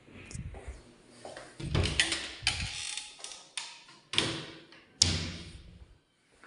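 Laminated wooden wardrobe doors being opened and shut: a string of sharp knocks and bangs, the loudest about five seconds in.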